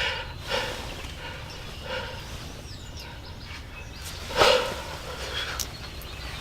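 A dog barking outdoors: several short barks, the loudest about four and a half seconds in, with faint bird chirps.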